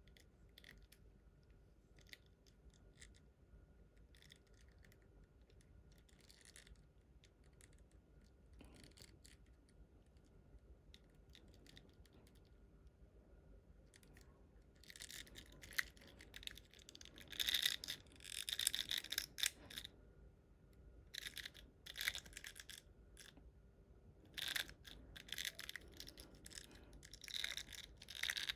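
Hands handling a plastic action figure and its packaging: faint scattered clicks, then from about halfway repeated bursts of plastic rustling and scraping.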